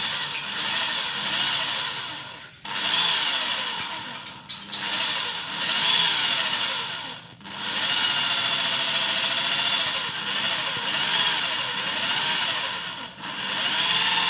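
Corded electric drill boring into a metal pipe: the motor whines and the bit grinds the metal, its pitch wavering as the bit bites. The drill eases off briefly about four times, then runs on.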